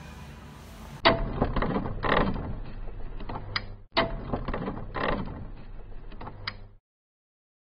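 Sound effect of heavy turning machinery for an animated gear logo: clanking, clicking and whooshing mechanical hits, striking hard about a second in and again near the middle, then cutting off suddenly near the end.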